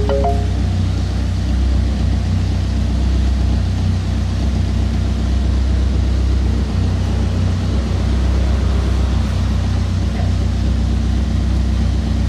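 Car engine idling steadily, an even low hum with no change in speed.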